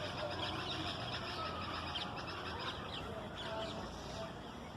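Red-vented bulbul calling: a steady run of short, quick chirps over a low background rumble.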